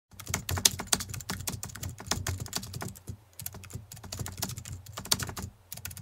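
Rapid, irregular run of sharp clicks, with a short pause about three seconds in, cutting off abruptly near the end.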